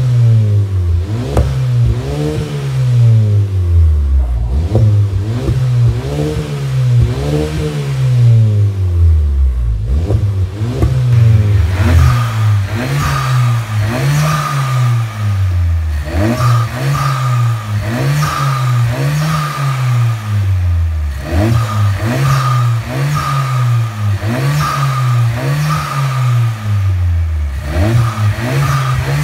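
2023 GAC Empow's turbocharged four-cylinder engine being revved over and over through an aftermarket catback exhaust, each rev rising and falling smoothly about every two seconds. From about twelve seconds in, a whistle comes with each rev.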